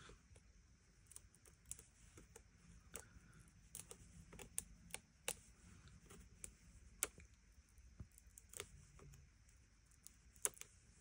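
Faint, scattered light clicks and taps of fingertips and nails pressing a die-cut black cardstock frame down onto a card. Everything else is near-silent room tone.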